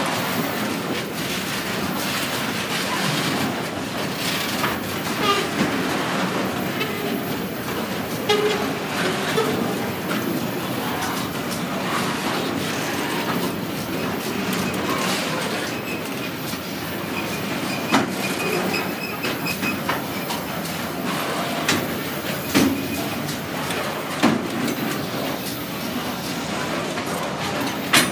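Loaded container wagons of a freight train rolling steadily past over a bridge: a continuous rumble of steel wheels on rail, broken by sharp clacks as wheelsets cross rail joints, more often in the second half.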